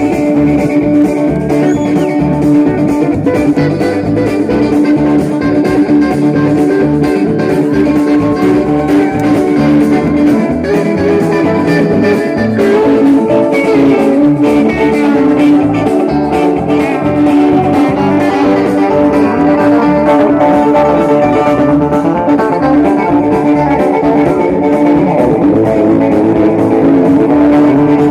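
Live band playing a song, with guitar to the fore, loud and without a break.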